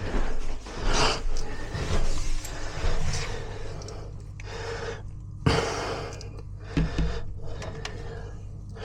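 Close breaths and handling noises, with a sharp click about five and a half seconds in.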